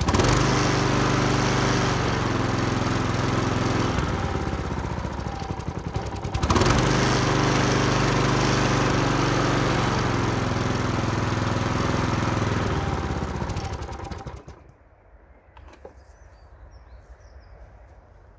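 Wolf TB46B walk-behind lawn mower's four-stroke engine running steadily on its own fuel supply after its carburettor was cleaned, with a brief surge in speed about six seconds in. About fourteen seconds in it winds down and stops.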